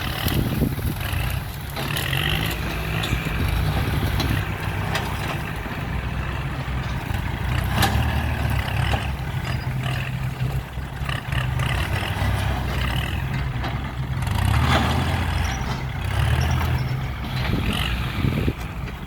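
Diesel engine of heavy earthmoving machinery running steadily, with a few sharp clanks, the loudest about eight seconds in.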